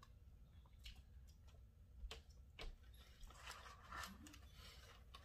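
Near silence with faint eating sounds: a few soft mouth clicks, then a short rustle about three seconds in, as a fried chicken sandwich is chewed and handled.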